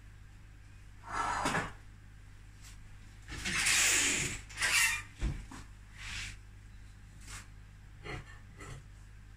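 Kitchen handling sounds during cooking. A hiss of about a second near the middle is the loudest event, followed by a dull thump and then several light knocks and clicks.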